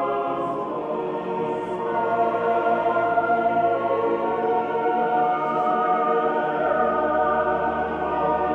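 Background music: slow choral singing in long, held chords over a low bass that shifts twice.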